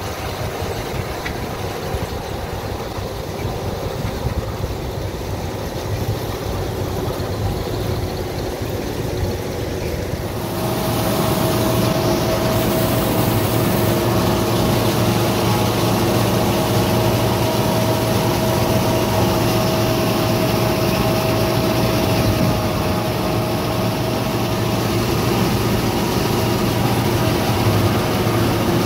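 Gleaner R60 combine running while harvesting soybeans: a steady, loud machine drone. About ten seconds in it grows louder and a steady whine joins it.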